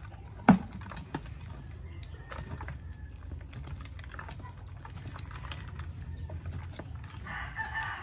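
Small hand garden fork scraping and picking at compacted soil and roots inside a plastic pail, with scattered small scratches and clicks and one sharp knock about half a second in as the tool strikes the pail. A rooster crows in the background near the end.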